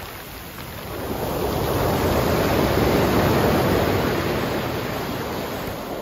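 Sea waves washing up over a pebble beach. One surge of surf swells over a couple of seconds and then slowly eases off.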